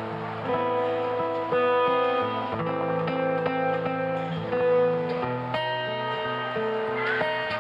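Acoustic guitar played solo, plucking a jazz passage of chords and single melody notes that change about every half second.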